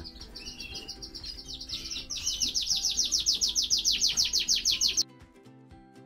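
Fife canary nestlings begging: a fast, even run of high chirps, about ten a second, for some three seconds, cutting off suddenly. Soft music runs underneath and carries on alone at the end.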